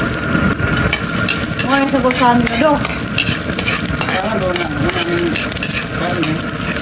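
Sliced red onion and garlic sizzling in a hot steel wok, stirred and pushed around with a metal ladle that scrapes and clicks against the pan. A few brief pitched sounds come from the background about two and four seconds in.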